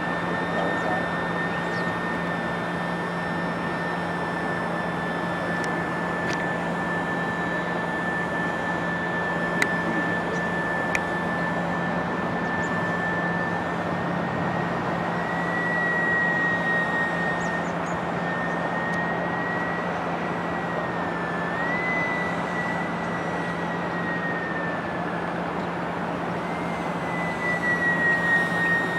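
Small electric RC plane's motor and propeller whining steadily in flight, over a steady hiss. The pitch wavers a little with throttle, rising briefly several times in the second half.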